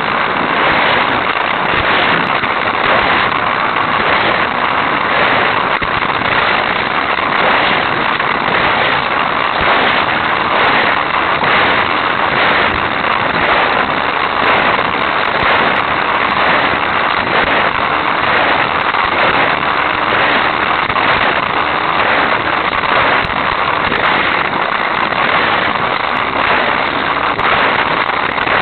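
Hot Wheels Sizzlers battery-powered electric toy car running flat out along plastic track, heard from a camera riding on it: a loud, steady buzz of its small motor mixed with a dense crackling rattle of the wheels and body on the track.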